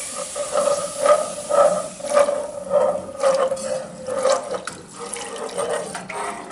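Chicken stock being poured slowly into a pan of butter-and-flour roux while it is whisked, the liquid running steadily with short whisk strokes about twice a second.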